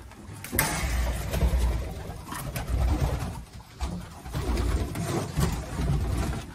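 Racing pigeons cooing, low and repeated, with scattered knocks and rustling; a louder rustle starts about half a second in.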